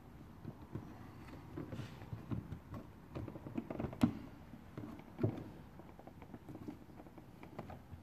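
A plastic trim tool and fingers prying at a car's fuel filler door housing: a run of small, irregular clicks and scrapes of plastic on plastic, with a sharper click about four seconds in and another just after five seconds.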